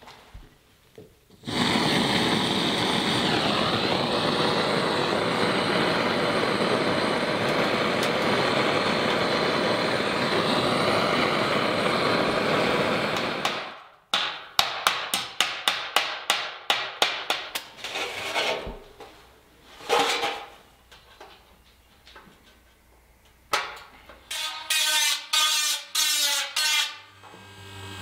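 A loud steady rushing noise for about twelve seconds, then a hammer tapping a galvanized sheet-metal cone over a metal stake, about three to four quick blows a second for some four seconds, followed by a few single taps. Near the end a small rotary tool whines in four short bursts against the metal seam.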